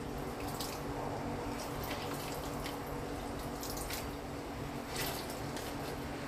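Orange juice squeezed by hand, dripping and splashing in a few separate drips into water in a wok, over a steady low hum.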